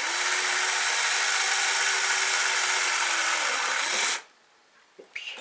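Electric drill running steadily with a large bit, boring a shallow recess into timber; its motor winds down and stops about four seconds in.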